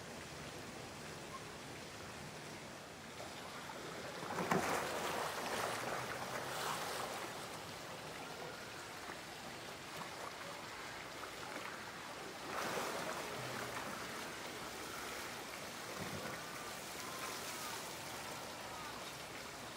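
Water in a polar bear pool: a steady wash of running water with two louder rushes of water, about four and a half and twelve and a half seconds in.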